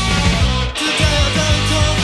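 Early-nineties indie rock demo recording played from a cassette: drum-machine beat with bass and electric guitar, with a brief break in the low end about three-quarters of a second in.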